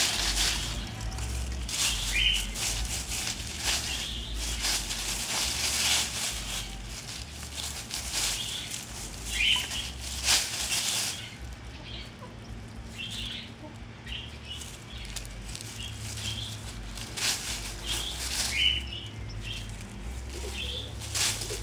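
Chickens (buff Orpington and Wyandotte hens) scratching and pecking in a pile of dry leaves, making an irregular crunching rustle of the leaves. A few short high chirps come through now and then.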